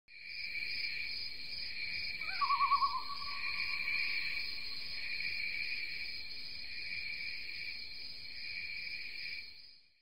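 Night ambience of insects chirring steadily, with one short wavering owl call about two and a half seconds in; it fades out shortly before the end.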